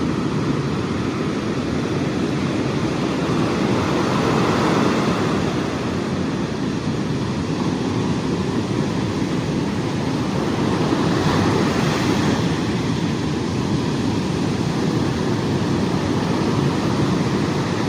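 Big sea waves surging and breaking, with wind on the microphone; the surf swells louder about four seconds in and again around eleven seconds.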